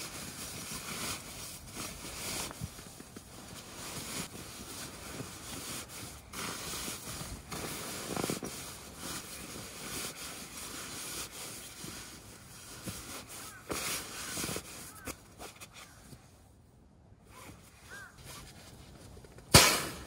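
Camping gear being handled and packed up: nylon rustling with scattered small clicks and knocks, and one sharp, loud knock near the end.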